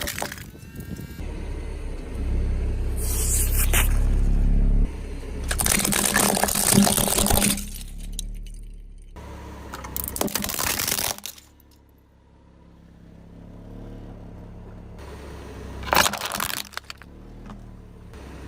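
A car rolling over and crushing objects: several bursts of crunching and cracking, with a low engine rumble between them.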